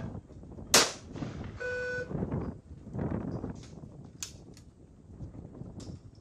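Single 12-gauge over-and-under trap shotgun shot about a second in, a sharp loud crack, followed shortly by a brief electronic beep. A few much fainter pops follow later.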